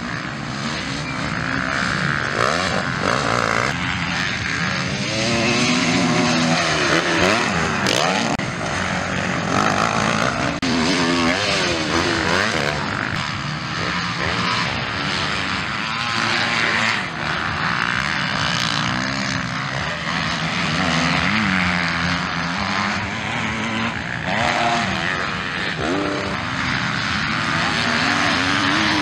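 Several MX1-class motocross bikes racing, their engines revving hard up and down through the gears. Their overlapping notes keep rising and falling as the bikes accelerate, shift and pass.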